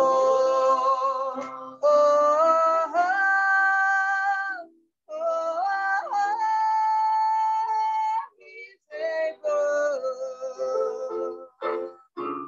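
A woman singing a worship song solo and unaccompanied, in phrases of long held and sliding notes with brief silent breaks between them.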